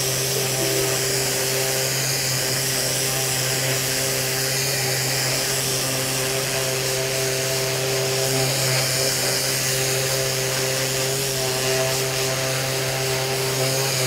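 Dual-action sander with an 80-grit disc running steadily, its pad sanding down a plastic weld. A constant motor hum with a hiss of abrasive on plastic.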